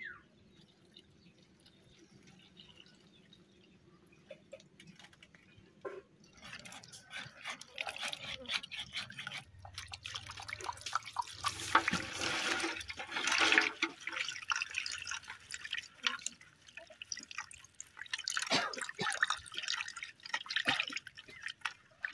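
Hands washing and rubbing cut raw fish pieces in water in a steel bowl: irregular wet splashing and squelching with small clicks against the metal, starting after a quiet first few seconds and busiest around the middle.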